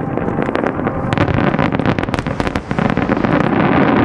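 Aerial fireworks going off in a rapid run of sharp crackling pops, many per second, thickest from about a second in until near the end, over a steady background rumble.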